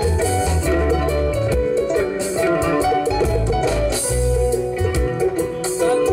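Live band music: an electric guitar melody over bass guitar and drums, with a steady beat.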